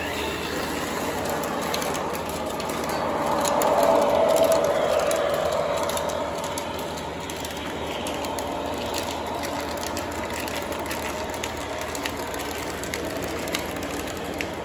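Lionel O gauge model trains running on three-rail track: the steady rolling noise of wheels and motors, swelling as a train passes close, loudest about four seconds in.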